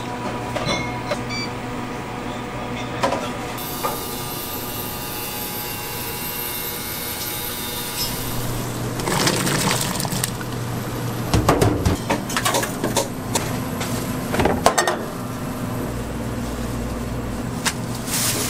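Sounds of a street-food stall: scattered clinks and knocks of utensils and dishes over a steady hum, with a stretch of steady hiss a few seconds in.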